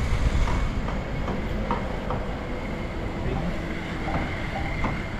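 Steady low rumble of an idling car heard from inside the cabin, with a thin steady high whine over it and a few faint scattered clicks.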